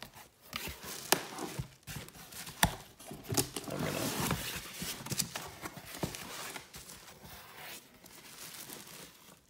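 Cardboard shipping box being opened by hand: packing tape tearing and cardboard flaps rustling, with several sharp cracks in the first few seconds and a louder rustle about four seconds in, then quieter handling that fades.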